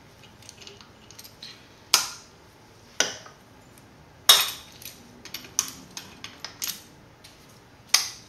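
Sharp metallic clinks and taps of hand tools and small steel engine parts being handled and set down: about seven distinct clinks with a few faint ticks between them, the loudest about four seconds in.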